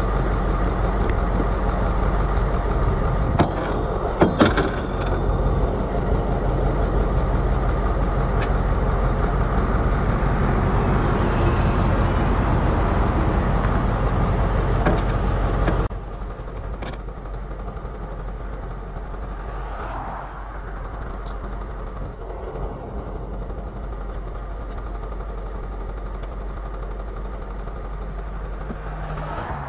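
Flatbed tow truck's engine idling steadily, with a few sharp knocks about four seconds in. About halfway through, the engine noise drops abruptly to a lower, quieter level.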